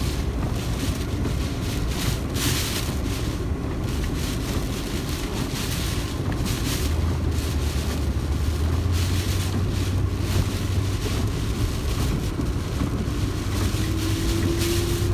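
Car driving in hurricane wind: a steady low engine and road rumble, with gusts of wind hissing and buffeting over it every few seconds.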